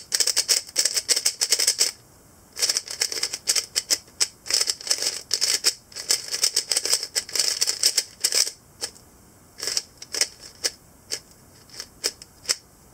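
Stickerless GuoGuan YueXiao 3x3 speed cube being turned quickly by hand: rapid runs of plastic clicks and clacks as the layers turn, thinning to separate single turns about two-thirds of the way through.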